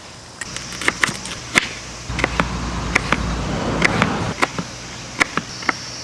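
Knife blade knocking on a wooden cutting board while mincing carrot: sharp, uneven taps about once or twice a second.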